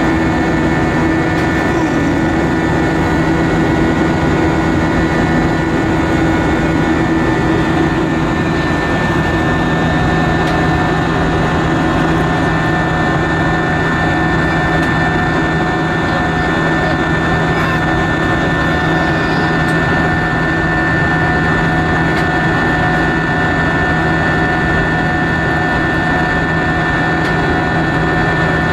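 Steady cabin noise inside an Airbus A320 airliner: a constant drone of engines and airflow with several steady hums layered over it. One more hum joins about ten seconds in.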